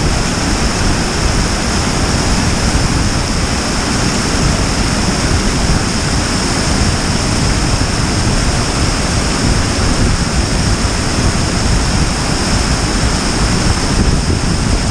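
Waterfall pouring down a rock face into a pool close by: a loud, steady rush of falling water.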